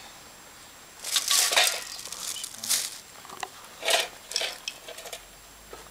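Thin plastic carrier bag rustling and crinkling in irregular bursts as it is handled, starting about a second in and dying away after about five seconds.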